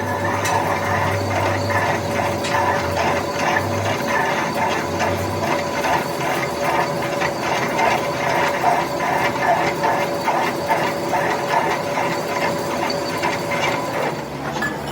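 A workshop machine running with a steady whine and a rapid, even ticking of about three clicks a second, which stops shortly before the end.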